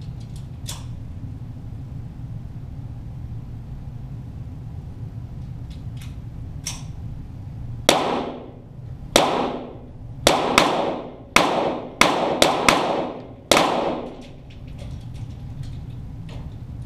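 .22 Walther GSP target pistols firing at the target, bullets punching through the paper: nine sharp reports over about six seconds at an uneven pace, each with a short echoing tail, starting about eight seconds in. A few faint ticks come before them.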